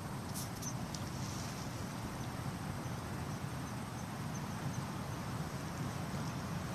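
Steady outdoor rushing noise with a run of short, high chirps, about three a second, in the first half.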